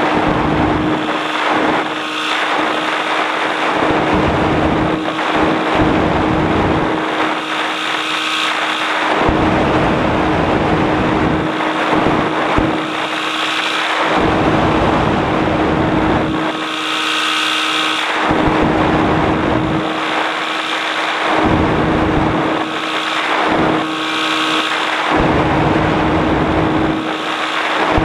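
Light aircraft's engine and propeller droning steadily in flight, with wind rushing over the microphone in uneven surges.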